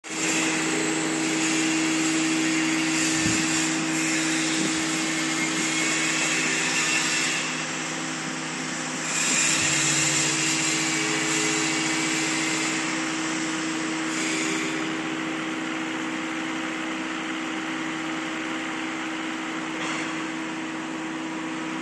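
Electric motors of a twin-shaft industrial mixer running steadily: a constant hum with a hiss over it, easing and swelling a few times.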